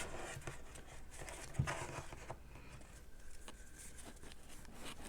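Faint handling noise from trading cards being gathered and sorted: light rustles and small clicks, with one soft knock about one and a half seconds in.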